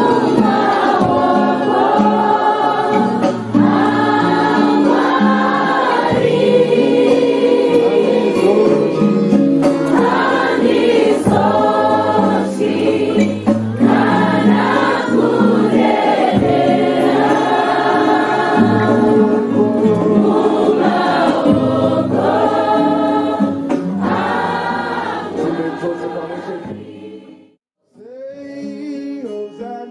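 A group of young people singing a gospel hymn together as a choir, with men's and women's voices. The singing fades out near the end, breaks off for a moment, and then quieter singing starts again.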